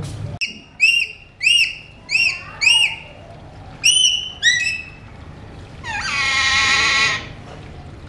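Alexandrine parakeets calling: a quick run of about five short, sharp whistled calls, then two more, then one longer call about six seconds in.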